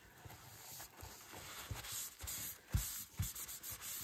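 Kitchen paper towel rubbing over freshly inked silver-finish paper, wiping ink off so the metallic silver shows through again, with a couple of soft bumps about three seconds in.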